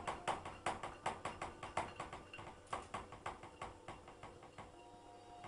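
Light knocks and clicks inside a front-loading washing machine's drum as a cat reaches in and paws at it: a quick, irregular run of about three or four a second that grows fainter and dies away near the end.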